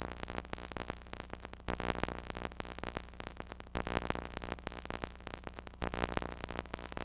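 VHS tape playback static: dense crackling over a steady low electrical buzz, surging louder about every two seconds.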